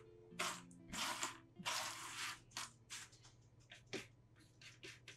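Cardboard jigsaw puzzle pieces rustling and clicking as hands sift and slide them around a loose pile on a tabletop: a string of short scratchy bursts, the longest about two seconds in. Faint background music plays under it.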